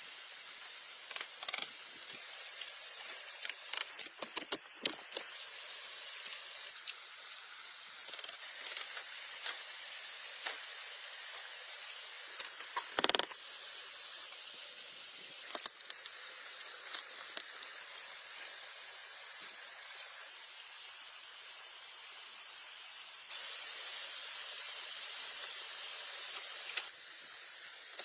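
Steady rushing hiss of falling water that steps up and down in level several times, with scattered sharp knocks and snaps over it. The loudest knock comes about halfway through.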